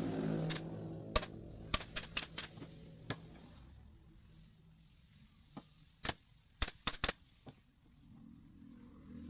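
Sharp knocks on wood in short, quick groups of three to five, with gaps between the groups, over a faint low hum.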